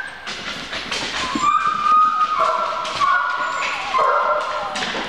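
Airedale cross puppies whining: a series of high, drawn-out whimpers, one after another from about a second and a half in. Short knocks from paws on a plywood floor are heard among them.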